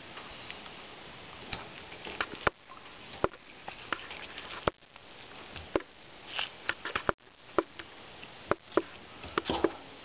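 Fillet knife working a northern pike on a cleaning board: irregular sharp clicks and taps of the blade against board and fish, with a few short scraping strokes.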